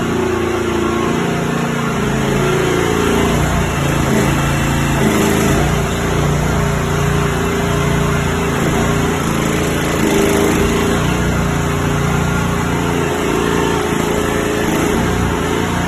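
Mini excavator engine running steadily, its pitch shifting up and down now and then.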